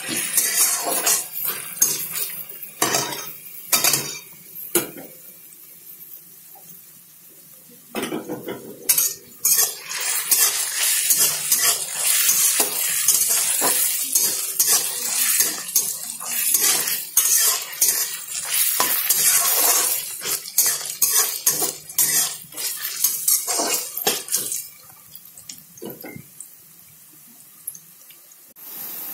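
A spatula scraping and clinking against a kadai as chopped onions are stirred while they fry in hot oil, with a hiss of frying under the strokes. The stirring stops for a few seconds about five seconds in and again near the end.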